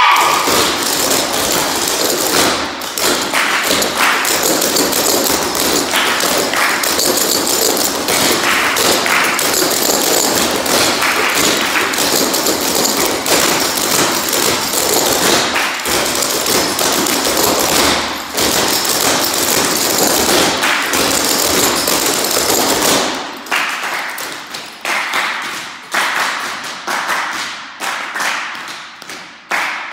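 A group of dancers stomping and stepping in sneakers on a matted floor, with hand claps, danced without music. The footfalls come thick and overlapping for most of the time, then thin out into separate, sharper stomps and claps near the end.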